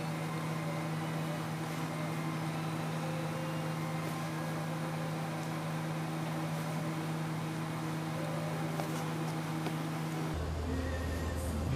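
A steady mechanical hum with a few held tones that gets fuller and deeper about ten seconds in.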